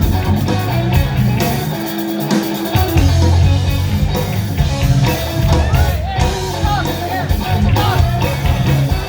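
Blues band playing a slow blues: a lead electric guitar with bent notes over bass and drums.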